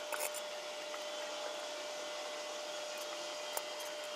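Hamilton Beach microwave oven running: a steady hum with a high whine held on one pitch, and a few faint ticks near the start and again near the end.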